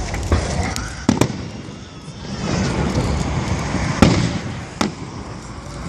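Fireworks display: aerial shells bursting in several sharp bangs, two close together about a second in and the loudest about four seconds in, with a steady hiss between them.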